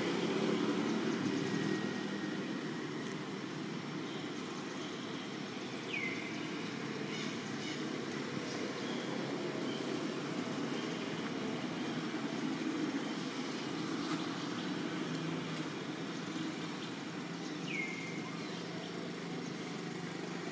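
Steady low outdoor rumble, with two short, high, falling chirps, one about six seconds in and one near the end.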